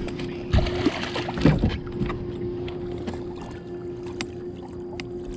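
A bass is landed into a bass boat: a short burst of splashing and bumping from about half a second to two seconds in, then scattered knocks from handling, over a steady electric hum from the boat.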